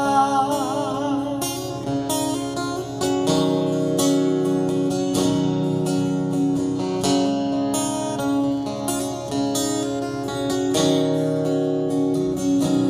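Acoustic guitar strummed steadily through an instrumental break. A held sung note with vibrato trails off in the first second and a half.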